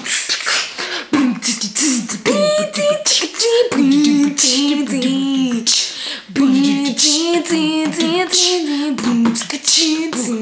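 Mouth beatboxing: a run of sharp percussive mouth sounds, with a sung melody without words coming in over it about two seconds in, dropping out briefly near the middle and then returning.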